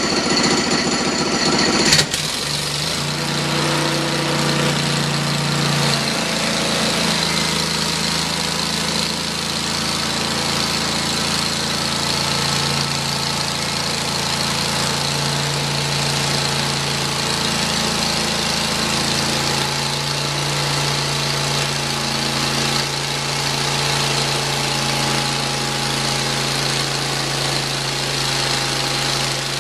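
Engine of a Hud-Son Oscar 36 bandsaw mill: a louder, higher running sound cuts off suddenly about two seconds in, and the engine then idles steadily while the saw head travels along its track.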